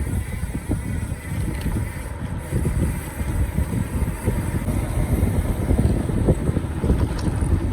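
Uneven low rumble of wind buffeting the microphone.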